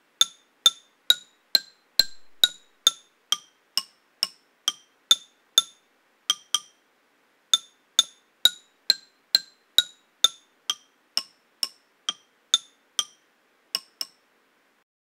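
Bars of a 3D-printed, fused-filament-fabrication xylophone-like instrument struck one at a time, about two strikes a second, with a short pause just before the middle. Each strike is a sharp click with a brief, bright ringing tone, and the pitch changes from bar to bar, giving a simple run of notes.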